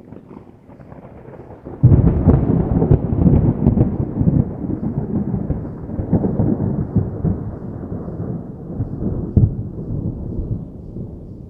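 Distant thunder: a low rumble that starts faintly, swells suddenly into a loud crackling peal about two seconds in, then rolls on and slowly fades.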